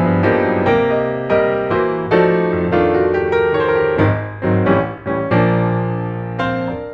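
Background music: a piano playing a gentle melody over chords, a new note or chord struck every half second or so. The last chord is left to ring and fades away near the end.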